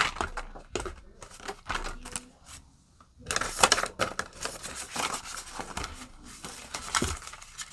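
Handling noise of Canadian polymer banknotes and a plastic binder envelope: short clicks and crinkles, with one sharp click at the very start and a thick rustle a little after three seconds in as a wad of bills is pulled out and fanned.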